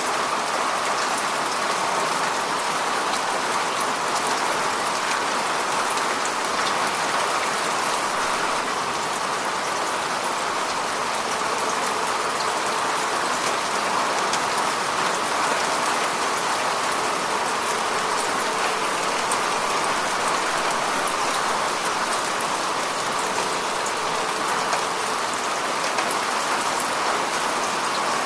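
Steady rain falling, with fine drop patter.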